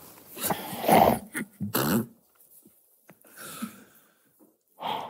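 Men stifling laughter: short, muffled bursts of laughing and breath, several in the first two seconds with the loudest about a second in, then fainter ones later and near the end.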